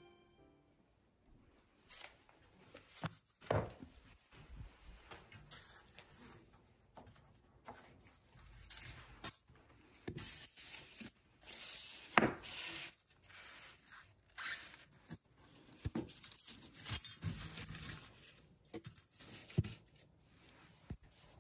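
Corrugated-cardboard cat scratcher pads being handled and shifted: irregular scraping and rubbing of cardboard with scattered light knocks, one sharper knock about twelve seconds in.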